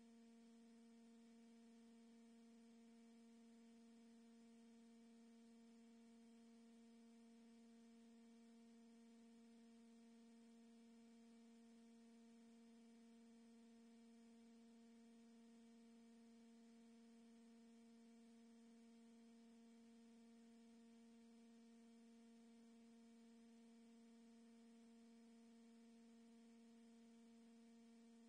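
Near silence: only a faint, steady electrical hum at one low pitch with a few overtones, unchanging throughout.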